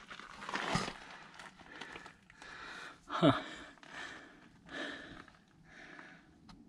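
A winded hiker breathing heavily, with exhales about every one and a half seconds, the strongest about three seconds in.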